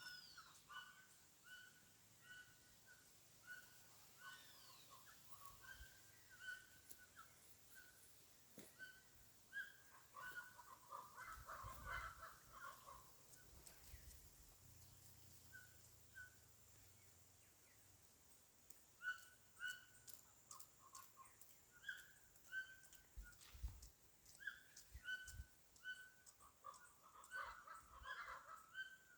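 Birds singing, faint: short notes repeated about twice a second, with busier bursts of chatter about ten seconds in and again near the end.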